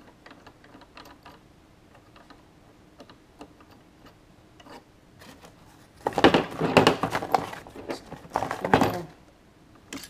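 Hand handling of a lever lockset and the HPC lever handle removal tool on a workbench: light metallic clicks and ticks, then, about six seconds in, a loud rattling clatter of parts being moved that lasts about three seconds.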